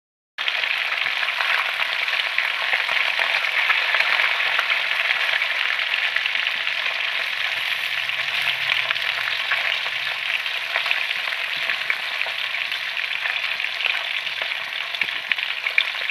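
Tilapia pieces frying in oil in a metal wok: a steady, dense sizzle and crackle that starts abruptly about half a second in.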